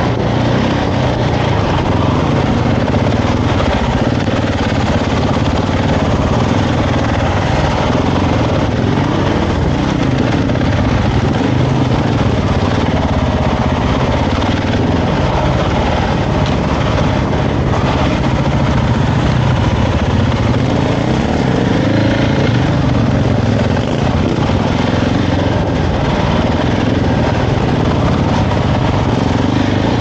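2023 Husqvarna 701's single-cylinder engine running as the bike is ridden along a dirt trail, its pitch rising and falling with the throttle.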